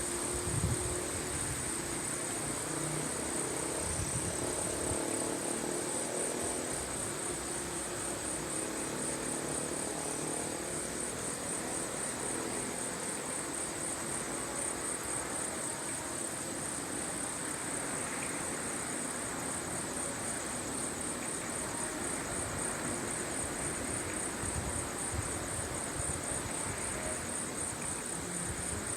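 Night insects, likely crickets, chirping in a steady, rapid, high-pitched pulse, over the even hiss of light rain falling.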